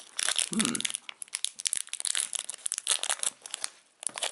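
Thin clear plastic wrapper being handled and pulled open by hand: a steady run of small, irregular crackles.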